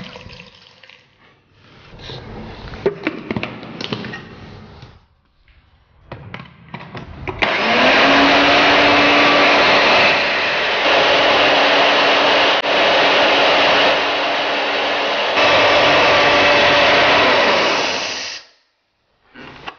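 Electric blender grinding grated coconut, methi leaves, green chillies, garlic, ginger and peppercorns with a little water into a paste: after a few knocks and clatters, the motor starts about seven seconds in with a hum rising in pitch as it spins up. It runs steadily for about eleven seconds with a few small dips in level, then stops abruptly.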